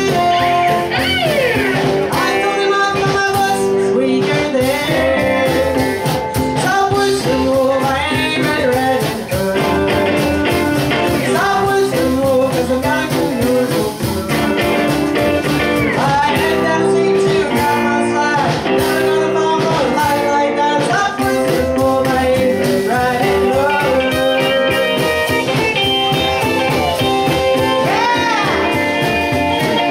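Live band music: a woman sings lead over electric guitar, upright bass and drums.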